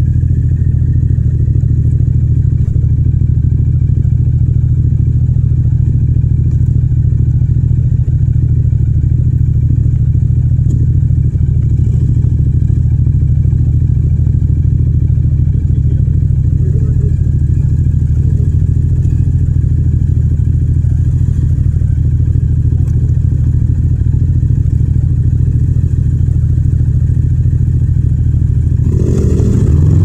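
Yamaha MT-07's 689 cc parallel-twin engine idling steadily at a standstill, then revving up with rising pitch as the bike pulls away about a second before the end.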